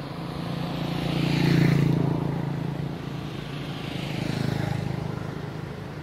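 Motor vehicles passing by: engine and road noise swells and fades twice, loudest about two seconds in and again about four and a half seconds in, over a steady low hum.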